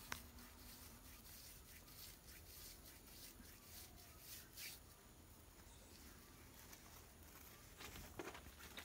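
Faint rustling of coconut coir fibres rubbed between palm and thigh as they are rolled into a thin rope: a few soft scratchy strokes, at the start, about halfway and near the end, over near silence.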